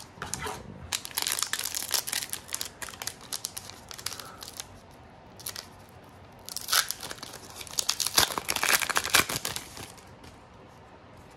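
Foil booster pack wrapper crinkling and being torn open, in two bursts of rustling a few seconds apart.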